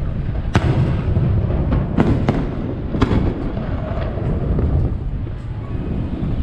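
Aerial firework shells launching and bursting: several sharp bangs, the loudest about half a second, two and three seconds in, over a continuous low rumble of booms.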